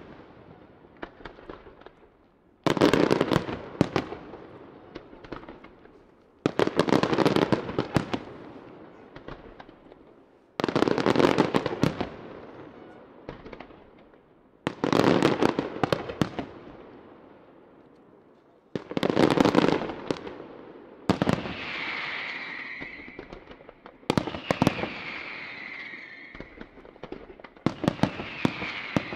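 Round aerial firework shells bursting one after another, a loud blast about every four seconds, each followed by a fading crackle. In the last third, falling whistles come in three times among further bangs.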